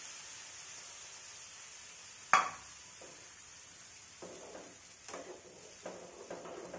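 Potato chutney sizzling in a frying pan on a gas stove with a steady hiss. There is a sharp metal clink about two seconds in, and from about four seconds in a steel spoon stirs and scrapes against the pan in short, uneven strokes.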